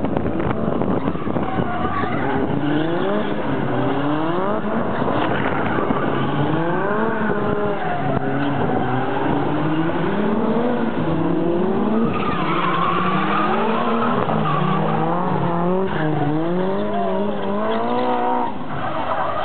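Drift cars' engines revving hard, their pitch climbing and dropping over and over, with tyres skidding as the cars slide sideways.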